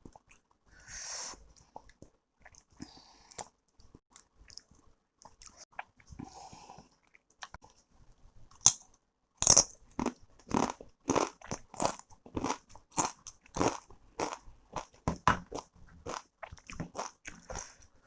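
A person biting into and chewing the Jolo chip, a crisp extreme-hot chip: a few faint clicks at first, then a sharp loud bite a little before halfway, followed by steady crunching about twice a second.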